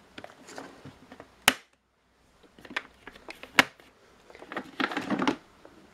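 Handling noise from a Numatic Henry vacuum cleaner's plastic motor head and drum as it is taken apart: two sharp clicks about two seconds apart, among lighter knocks and rustling that grow busier near the end. The motor is not running.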